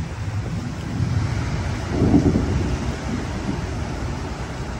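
Rolling thunder rumbling low, swelling to its loudest about two seconds in and then slowly dying away.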